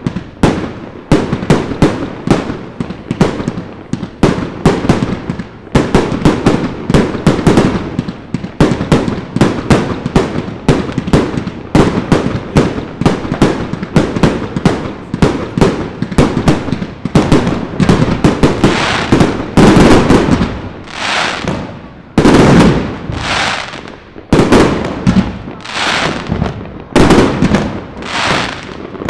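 Fireworks going off in rapid succession: a dense stream of sharp bangs and crackle that changes, about two-thirds of the way through, to fewer, heavier bursts roughly one a second.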